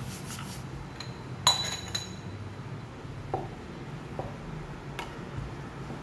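A wooden rolling pin rolling out a ball of luchi dough on an oiled wooden board, with a few soft knocks. A sharp ringing clink comes about a second and a half in, with a smaller one just after.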